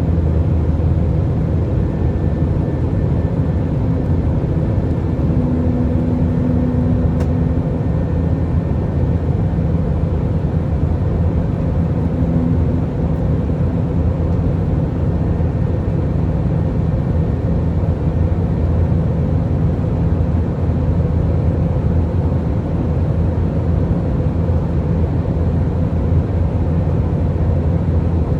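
Steady cabin noise inside an Airbus A319 airliner in flight: an even rush of engine and airflow noise over a constant low hum, the hum the uploader could not identify and heard throughout the flight.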